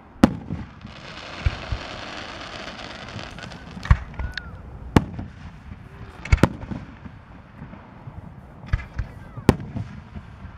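Aerial firework shells bursting with sharp bangs, about nine over ten seconds, irregularly spaced. A hiss lasts for a couple of seconds after the first bang.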